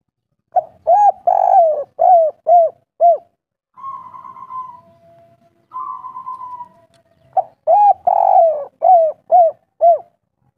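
Spotted dove cooing: two phrases of about six arched coos each, one near the start and one near the end. In the pause between them come softer, hoarser sounds.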